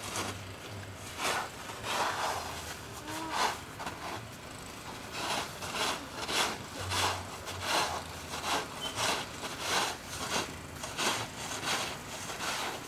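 Snow being cleared by hand: a long run of short scraping strokes, about one to two a second, each a brief rough scrape.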